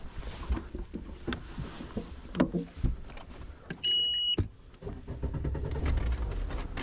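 Knocks and clicks of gear being handled, then a half-second beep from the boat's ignition warning horn as the key is turned on. After that the boat engine starts and runs with a steady low rumble.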